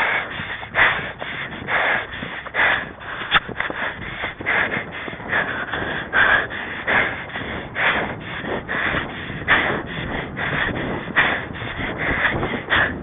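A horse rider's heavy, rapid breathing, a regular rhythm of hard breaths nearly two a second, from exertion while riding.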